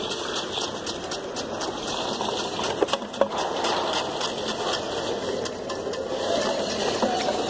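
Small electric motors of a cleaning robot whirring steadily as it drives and turns its roller brush, with two light clicks about three seconds in.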